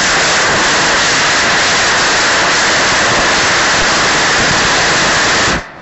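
Black-powder model rocket motor firing on a static test stand. Its exhaust makes a loud, steady rushing hiss that cuts off suddenly near the end.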